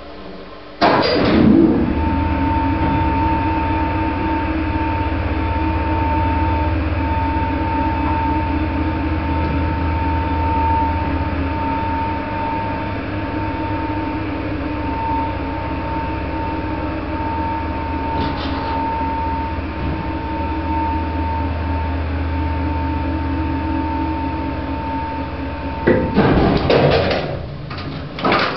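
Old dumb waiter's lift machinery during a ride: a loud jolt about a second in as it sets off, then a steady motor hum with a pulsing high whine, and a loud clatter near the end as it stops.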